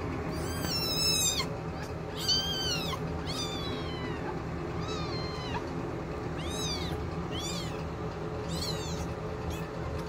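Two-week-old kittens mewing while they nurse and squabble at the teats: about eight short, high-pitched, rising-and-falling mews, the loudest two in the first few seconds, over a steady low rumble.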